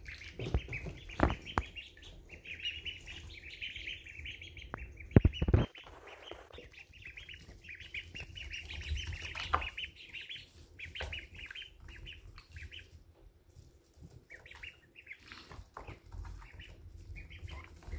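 A brood of week-old ducklings peeping constantly in quick, high chirps, with a few sharp knocks; the loudest knocks come about five seconds in.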